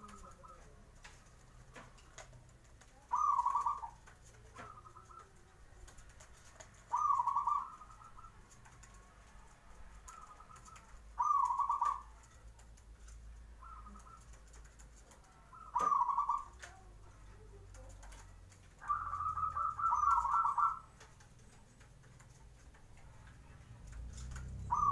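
Zebra dove (perkutut) singing its rolling coo. A short phrase comes about every four seconds, with fainter notes in between and a longer phrase near the end.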